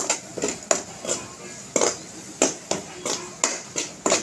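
Slotted metal spatula scraping and knocking against a metal kadai while stirring a thick onion-tomato masala. Irregular clinks and scrapes come about two to three a second.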